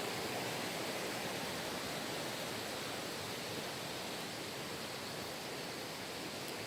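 Valley stream water rushing in a steady, even wash of noise.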